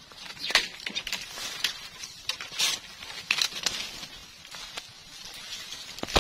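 Irregular crackling and rustling of dry stems and leaves, with a scatter of sharp snaps.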